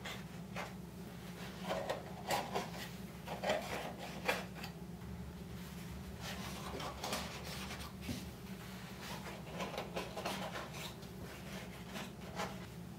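Black leather watch pillows being pushed one by one into the square compartments of a wooden grid: leather rubbing and scraping against the wood, with light taps, coming irregularly with a few louder scrapes about two to four seconds in.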